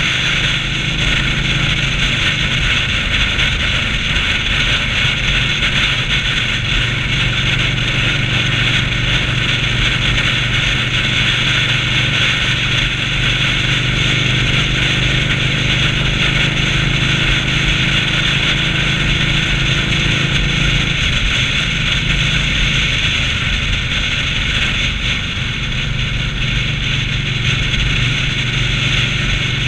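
Indian Scout V-twin motorcycle cruising at steady highway speed: the engine's steady low drone under heavy wind rush on the microphone.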